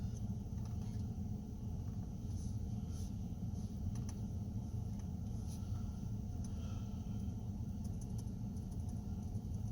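A few faint, scattered laptop key or button clicks over a steady low rumble.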